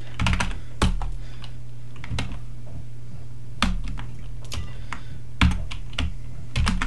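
Computer keyboard keys pressed a few at a time with pauses between, including control-key shortcuts, giving scattered sharp clicks over a steady low hum.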